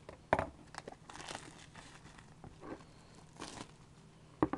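Plastic wrapping on a sealed trading-card box crinkling as it is handled, with a sharp click just after the start and two quick clicks near the end.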